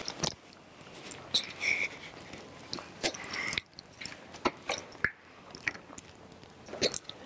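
Faint, scattered scuffs and clicks of children's shoes walking across a wooden stage floor, with a little rustling.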